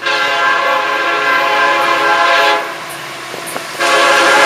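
Florida East Coast Railway freight locomotive's air horn sounding a steady chord: one long blast of about two and a half seconds, a short gap, then a second long blast starting near the end.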